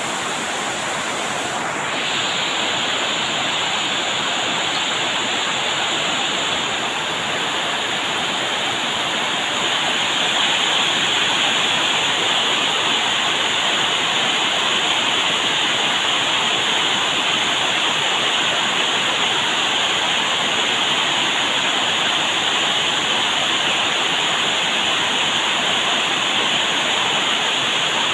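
Rushing water, a steady unbroken rush of noise.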